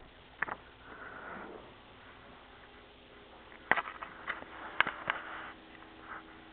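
Handling noise from a camcorder being moved: scattered sharp clicks and knocks, most of them in a cluster a little past the middle, with a short breathy hiss about a second in.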